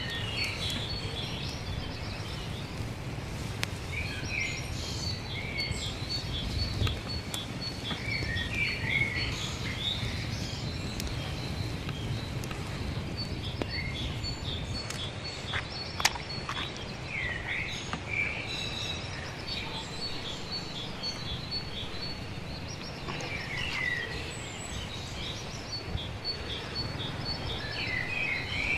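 Birds chirping in short bursts every few seconds, with a rapid high ticking call, over a steady low background noise; a single sharp click midway.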